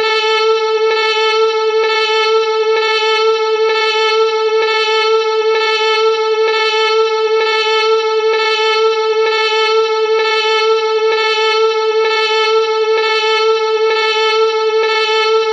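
Star Trek electronic sound effect: a steady, unbroken tone with many overtones, pulsing faintly about once a second.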